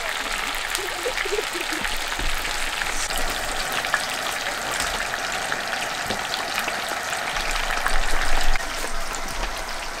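Food deep-frying in hot oil in a stainless steel pot: a steady, dense sizzle full of small crackling pops.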